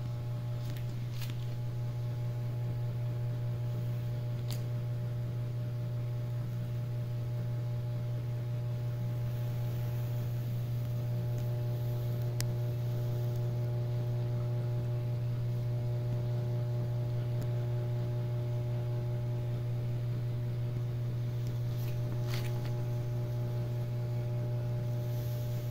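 Steady low hum of running reef-aquarium equipment, with a few fainter steady higher tones over it and a few faint clicks.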